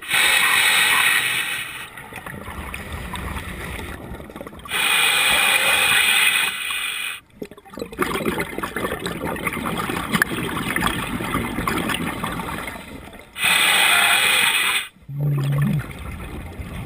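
Scuba regulator breathing underwater: exhaled air bubbles out in three loud rushing bursts of a second and a half or two, with quieter crackling and bubbling between breaths.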